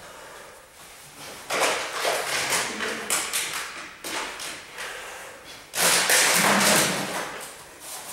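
Grappling on interlocking foam floor mats: bodies and limbs scuffling and thudding against the mats. The scuffling is loudest from about a second and a half in, and in a second, louder stretch about six seconds in.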